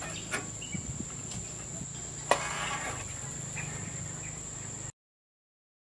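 Insects keep up a steady high whine over a low hum, broken by a few light clicks and one sharp metallic snap a little over two seconds in, which fits a bicycle's kickstand being kicked up. The sound cuts off completely about a second before the end.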